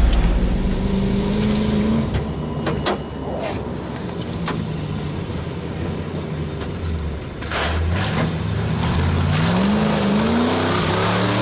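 Off-road four-wheel-drive vehicle's engine running at low revs, with a few sharp knocks in the first few seconds, then revving up with a rising pitch near the end.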